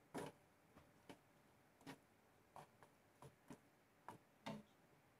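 Wooden spatula stirring mushrooms in a pan, tapping and knocking lightly against it in about ten faint, irregularly spaced clicks.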